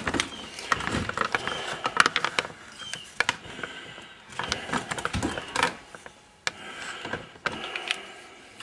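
Irregular clicks, knocks and light clatter of metal tools and parts being handled, with no steady machine running.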